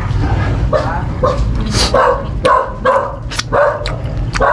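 A dog barking repeatedly, about two barks a second, with sharp clicks between the barks.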